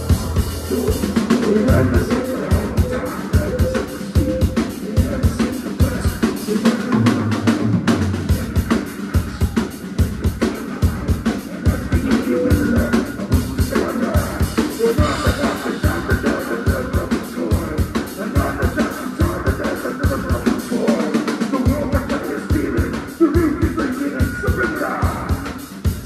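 Rock band playing live and loud through a club PA: a steady driving drum-kit beat with bass drum and snare under electric guitars and bass guitars.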